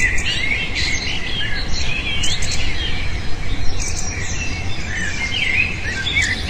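A busy chorus of many small birds chirping and twittering at once, short overlapping calls one after another, over a steady low rumble.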